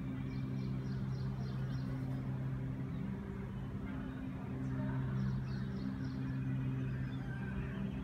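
Steady low hum of an idling engine, with two short runs of quick high chirps, one near the start and one about halfway through.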